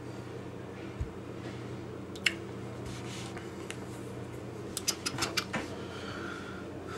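Steady low hum of room tone with a few faint handling clicks and taps: a dull thump about a second in, a sharp click a little after two seconds, and a quick run of clicks around five seconds.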